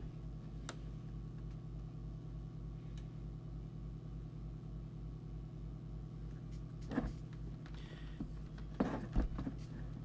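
Steady low electrical hum with a faint throb about four or five times a second. A few light clicks and a rustle come late on as the multimeter and its test probes are handled.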